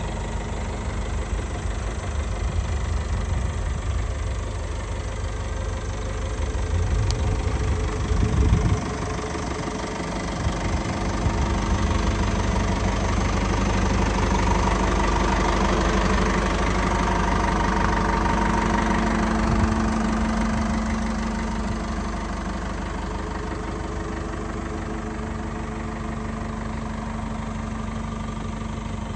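Caterpillar 420D backhoe loader's diesel engine running steadily, with a short knock about eight seconds in; midway it speeds up and gets louder for several seconds, then settles back to idle.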